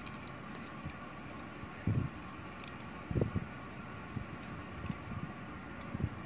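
Lego pieces being handled and pressed onto a small brick-built Christmas tree: two dull knocks about two and three seconds in and a few faint plastic clicks as small round plates snap on, over a steady background noise.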